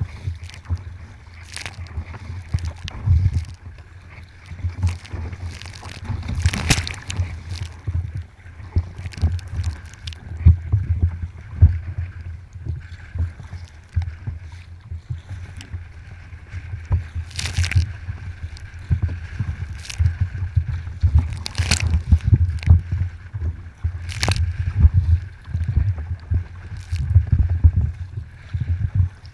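Kayak paddling on open water: water sloshing and gurgling against the hull, with irregular sharp splashes or knocks as the paddle works. A continuous uneven low rumble runs underneath, typical of wind buffeting the microphone.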